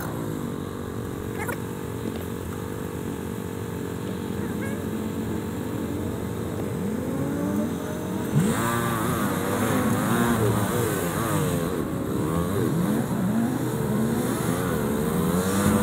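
Royal Enfield Himalayan's single-cylinder engine running in stop-and-go traffic, sped up four times. It holds fairly steady at first; from about halfway the revs rise and fall rapidly over and over.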